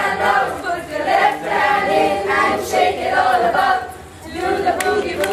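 A group of people singing together, briefly dropping off about four seconds in before picking up again.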